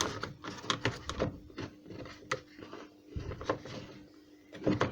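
Hard plastic air intake duct being fitted and pushed into its side slots: a run of irregular light clicks and knocks, busiest near the end.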